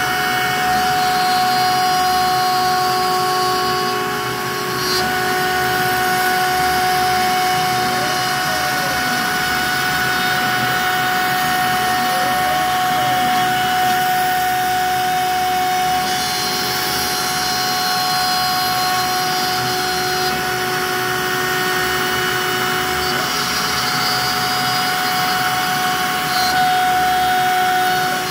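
Trim router mounted as a CNC router spindle, running at a steady high-pitched whine while its bit carves a relief into a pine board. The cutting sound dips briefly a few times as the cut changes, and twice a faint tone rises and falls.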